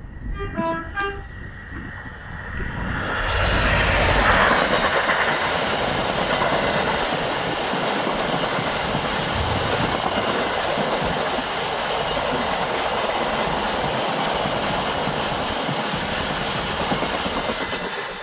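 Class 66 diesel freight locomotive sounding a short two-tone horn, then passing close by, its two-stroke V12 engine loudest about four seconds in. A long train of box wagons follows, rolling past with a steady rumble of wheels on rail.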